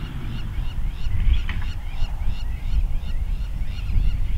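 Birds calling over and over in short, high, downward-sliding calls, about three or four a second, above a low, uneven rumble. A small engine dies away right at the start.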